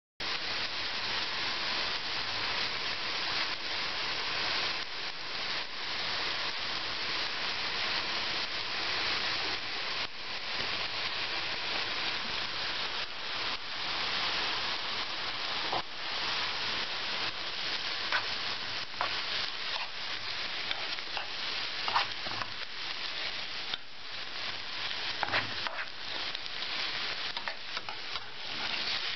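Chopped onions sizzling steadily in hot oil in a frying pan, stirred with a spoon, with a few sharp clicks in the second half.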